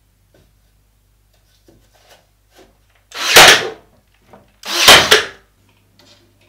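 Ryobi cordless brad nailer firing twice, about a second and a half apart, each shot a short whirr-and-thunk lasting about half a second, driving nails through laminate cladding boards into the timber frame.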